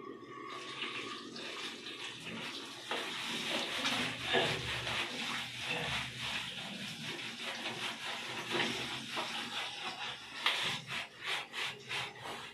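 Hands scrubbing shampoo lather through a wet golden retriever's coat, a steady wet rubbing that turns into quick, regular strokes near the end.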